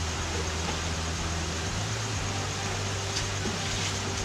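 Steady low mechanical hum under an even hiss, with no change or event.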